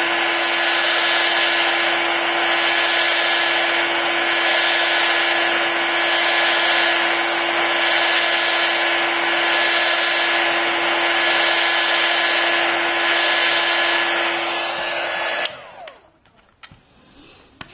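Heat gun blowing steadily with a constant motor hum, warming the glass to soften the adhesive beneath it. It switches off suddenly about fifteen seconds in, leaving a few faint ticks.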